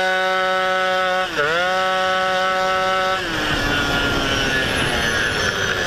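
MBK 40T Doppler's 50cc two-stroke single-cylinder moped engine running at steady high revs. It dips and recovers about a second and a half in, then drops to lower revs about three seconds in as the throttle eases, with road and wind noise. The rider puts the wavering revs down to a tired spring in the variator drive.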